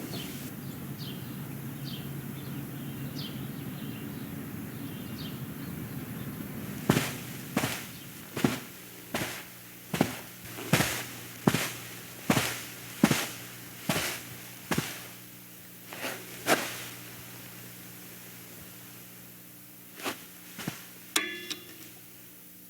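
Footsteps: a run of about a dozen sharp, evenly paced steps, roughly one every three-quarters of a second, over a low steady room hum, with a couple more steps and a brief rattle near the end.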